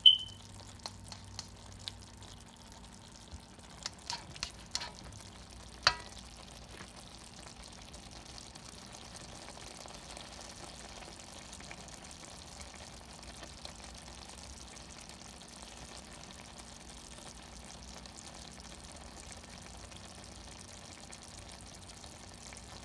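Turnip greens cooking in broth in a wok, a faint steady sizzle. A cooking utensil clinks sharply against the pan at the start, with a short ring, and taps a few more times while stirring in the first six seconds; after that only the sizzle goes on.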